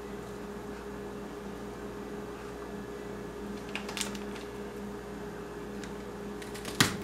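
Kitchen knife knocking on a wooden cutting board while celery is cut: a couple of light taps about four seconds in and one sharp knock near the end, over a steady low hum.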